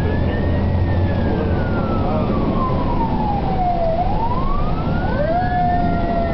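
Fire truck siren wailing, heard from inside the cab over the engine: the pitch rises, slides slowly down, then climbs again, and a second, steadier tone joins about five seconds in.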